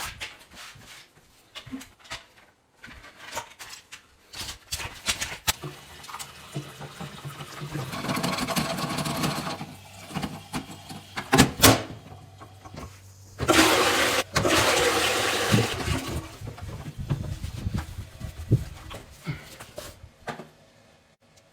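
Toilet with a concealed cistern being flushed: water rushing through the bowl in two spells of a few seconds each, the second louder, among scattered clicks and knocks.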